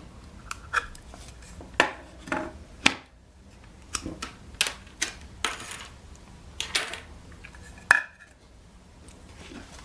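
Small hard parts of a homemade rotating display stand being handled by hand, giving about a dozen irregular sharp clicks and light knocks with brief rustles between them.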